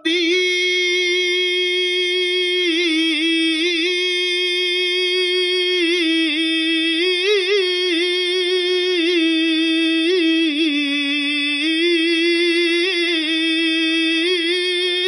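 One unaccompanied voice holding a single very long sung note in a naat, wavering with vibrato and small melodic turns without a break for the whole stretch.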